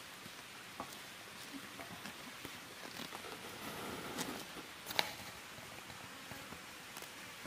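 Hands plucking feathers from a chicken on a sack: soft rustling and scattered small clicks over a faint steady hiss, with one sharper click about five seconds in.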